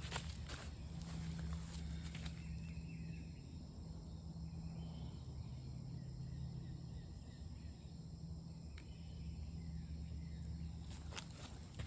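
Quiet outdoor ambience: a steady low rumble with a few faint, short, high chirps scattered through the middle, and a couple of soft clicks near the start and the end.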